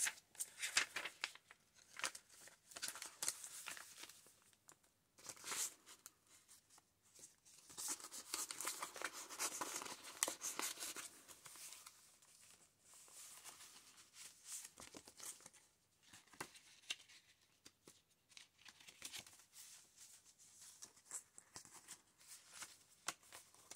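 Faint, irregular rustling and crinkling of paper pages being turned and handled by hand in a thick handmade junk journal, with small clicks as pages and inserts are moved.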